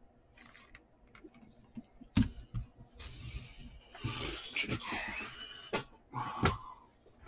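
Someone moving about and handling things: scattered knocks and clicks, a sharp knock about two seconds in and another near the end, and a stretch of rustling and scraping in between.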